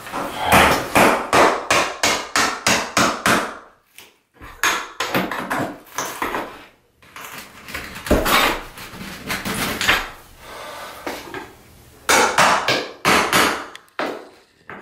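Metal pry tool being knocked in behind painted wooden trim to work it loose: runs of sharp hammering knocks, about three or four a second, in several bursts with short pauses between.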